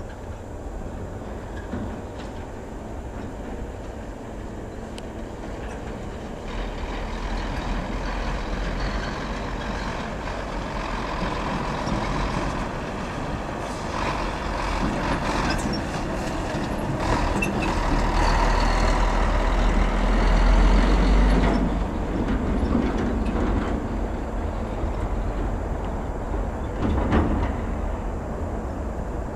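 Boeing 737's CFM56 turbofan engines at takeoff thrust during the takeoff roll: a steady jet roar that builds from about a quarter of the way in, is loudest a little past the middle, then eases off.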